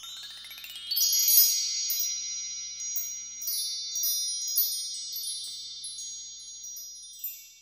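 Shimmering chime sound effect: a rising sweep in the first second, then scattered bright chime strikes over high ringing tones that slowly fade away near the end.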